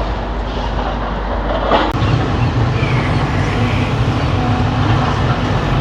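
Steady rumble of diesel engines and vehicle noise. About two seconds in the sound changes abruptly, and a deeper, stronger engine drone with a steady low hum carries on from there.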